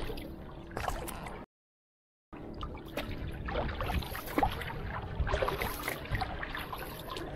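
Water splashing and trickling around a small wooden canoe as a paddle works the water, with irregular small splashes. The sound cuts out completely for under a second near the start.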